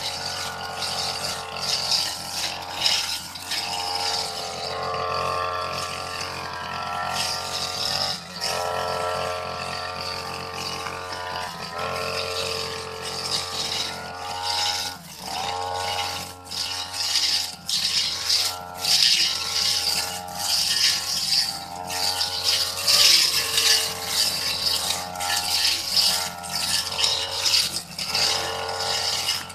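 Petrol backpack brush cutter running at high speed as its blade cuts through tall grass. The engine note dips briefly several times as the blade bogs in thick growth, over a steady crackle of stems being struck.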